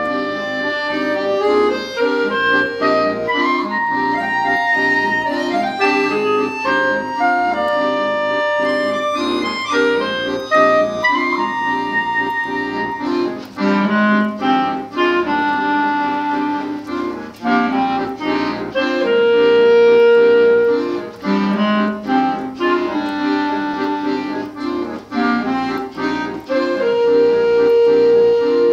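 Clarinet and two accordions playing a slow instrumental piece: a clarinet melody over sustained accordion chords. About halfway through, the accompaniment turns to quick repeated short chords, with long held notes between.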